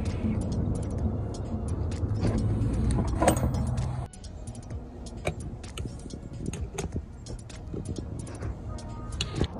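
A steady low rumble for about four seconds, then it drops away sharply and a wrench clinks and clicks against the nut and terminal stud of a starter solenoid, in many short irregular metallic clicks.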